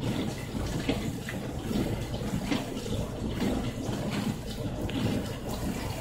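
Dishwasher running its wash cycle, water sloshing and spraying inside over a steady low rumble. The tub is overfilled with suds from hand dishwashing soap, foam spilling out of the door.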